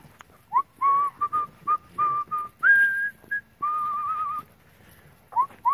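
A person whistling a simple tune: a run of short held notes, each sliding up into its pitch, with one higher note about halfway through and a longer wavering note just after it.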